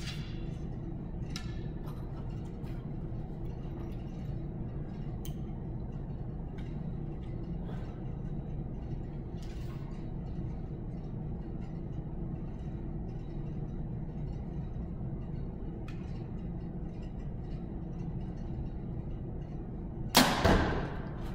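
A compound bow held quietly at full draw over a steady low hum, with a few faint clicks as the arrow is nocked and drawn, then shot near the end: a loud sharp crack from the bow at release, followed a moment later by a second hit as the arrow strikes the target.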